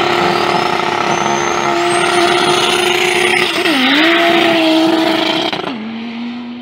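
Drag-racing car accelerating hard down the strip, its engine at high revs with a high whine rising over the first two seconds and a brief dip and recovery in engine pitch about three and a half seconds in, as at a gear change. Near the end the sound cuts abruptly to a lower, steadier engine note.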